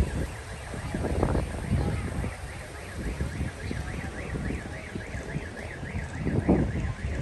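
A car alarm sounding, a rapid warbling tone rising and falling about four times a second, over a low outdoor rumble with wind on the microphone.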